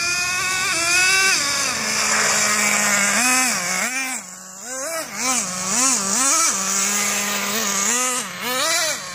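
Radio-controlled buggy's motor whining under throttle: it climbs in pitch in the first second, holds steady, then rises and falls again and again, about twice a second, as the throttle is blipped.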